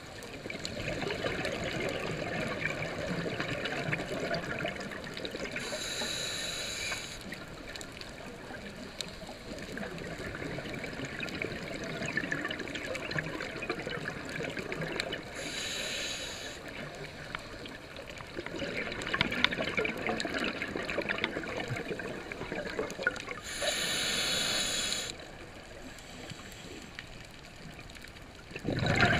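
Scuba diver breathing through a regulator underwater, heard through a camera's waterproof housing: long stretches of bubbling exhalation, each followed by a short hiss of inhalation, three breaths in all.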